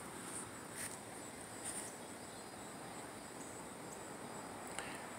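Insects trilling steadily at a high pitch in garden greenery, with a few faint short chirps over it.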